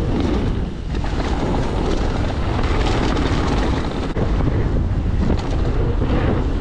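Wind rushing over the camera microphone and the tyres of a Mondraker Foxy mountain bike rumbling on a hard-packed dirt trail at speed, with a couple of short knocks from the bike over bumps.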